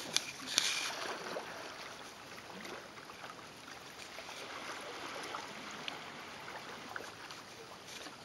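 Canoe paddle strokes in flat river water: splashing and trickling water, with two sharp knocks within the first second.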